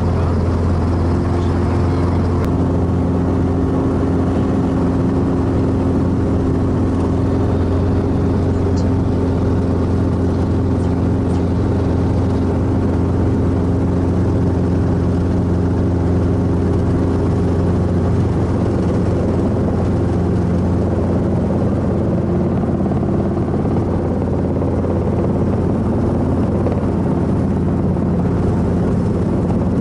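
Light helicopter's engine and main rotor running steadily, heard from inside the cockpit as an even low drone with a steady hum over it.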